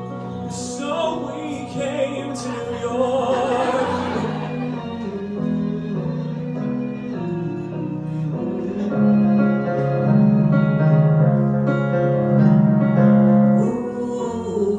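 Piano accompanying singing. In the first few seconds a voice holds a wavering note with vibrato, then the piano plays held chords.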